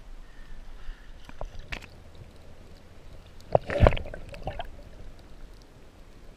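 Shallow seawater sloshing and gurgling beside a kayak, with a loud splash about three and a half seconds in as the camera goes under the surface, then a few smaller splashes.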